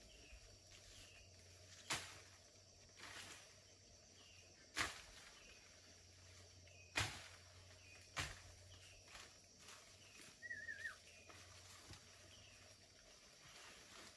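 Quiet rural outdoor ambience with four sharp clicks spread through it, faint short chirps repeating in the background, and one short warbling bird call about ten and a half seconds in.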